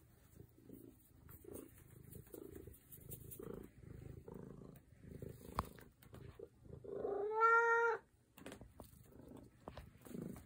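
Tabby house cat purring in a low, rhythmic pulse while being stroked, with one loud, drawn-out meow about seven seconds in that lasts about a second.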